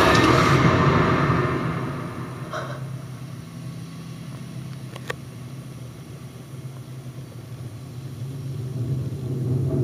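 Low, steady rumbling drone of a film soundtrack, opening with a loud hit that fades away over the first couple of seconds. A sharp click comes about five seconds in, and the drone swells again near the end.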